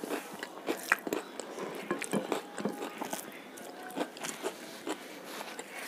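Close-miked eating sounds: chewing with a run of short, wet clicks, and fingers mixing rice on a plate.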